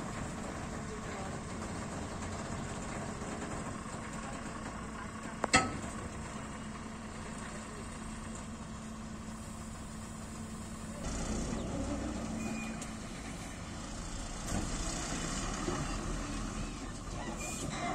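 Heavy diesel tipper truck's engine running steadily with the dump body raised, then pulling harder and louder from about eleven seconds in as the truck moves off. A single sharp knock about five seconds in.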